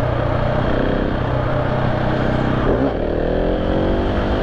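KTM 690 SMC R's single-cylinder engine running, with a brief drop in revs about two and a half seconds in, then revs rising steadily as the bike accelerates.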